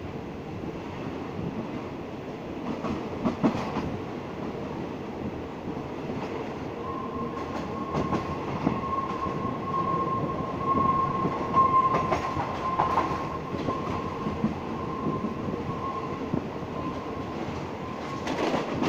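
Ordinary passenger train running on the rails: a steady rumble with scattered clacks, and a steady whine held for about ten seconds through the middle.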